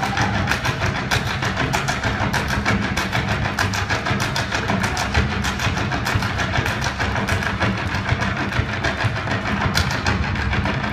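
Live stage-show music through a loud, overloaded phone microphone, with a fast, even clatter of percussive clicks from the dancers on stage and a heavy, steady low hum.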